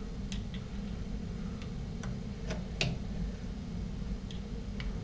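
Scattered light clicks and taps of small metal engine parts being handled as the oil pump is lubed and fitted into the YFZ450 crankcase, over a steady low hum.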